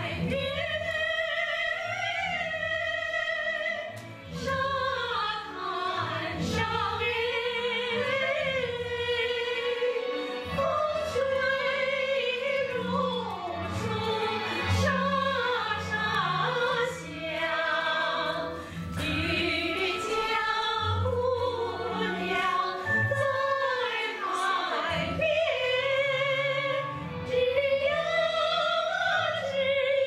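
A women's vocal ensemble singing a lyrical folk-style song together, in full voice with wide vibrato, over an accompaniment of sustained bass notes.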